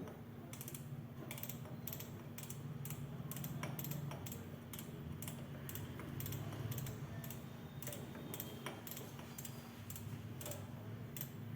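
LG microwave oven running in micro-grill combination mode: a steady low hum with many faint, irregular clicks over it.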